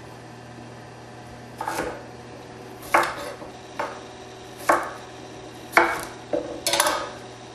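Chef's knife cutting through small raw potatoes and knocking down onto a wooden cutting board, about seven separate cuts spaced roughly a second apart.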